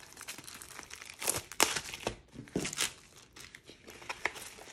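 Clear plastic film on a rolled diamond painting canvas crinkling as hands handle and unroll it: irregular rustles, with a few louder crackles in the middle.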